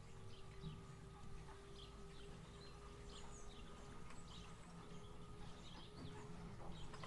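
Electric boat motor humming quietly with a faint steady whine, while small birds chirp now and then.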